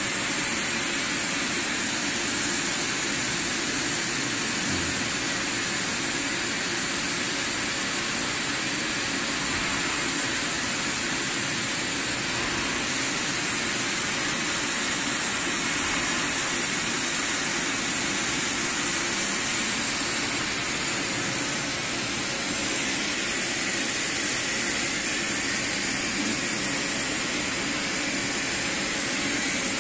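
Hot air welding machine running steadily, its hot air blower giving an even rushing hiss with a thin high whine over it.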